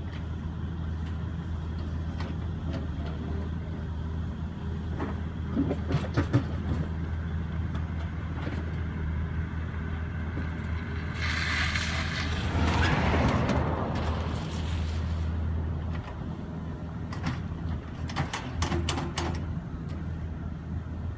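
Excavator's diesel engine running steadily under load while its bucket scrapes and clanks against frozen ground, the teeth failing to bite into the frost. A long, loud grinding scrape comes about halfway through, with sharp metal clanks shortly before it and again near the end.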